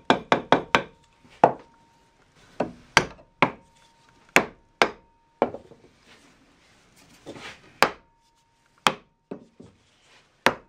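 Round wooden mallet knocking on a wooden block set on a cast-iron gearbox housing, tapping the top half down so its bearings press into the bottom casting. It lands a quick run of about five blows, then single knocks every half second to a second.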